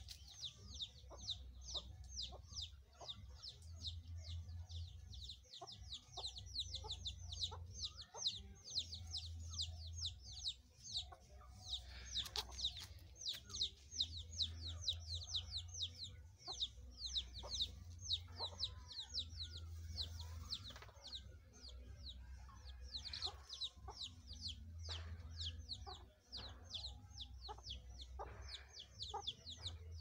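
Young backyard chickens vocalizing: a continuous rapid high-pitched chirping, several chirps a second, with scattered clucks that thicken around the middle.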